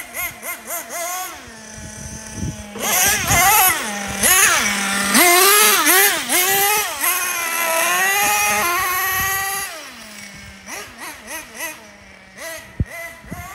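Small nitro engine of a Team Associated MGT 4.6 RC monster truck revving up and down over and over with throttle blips, dropping back to a steady idle between runs. It is loudest in the middle stretch and gives only short blips near the end.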